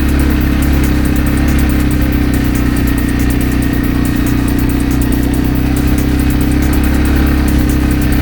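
An engine running steadily at an unchanging pitch.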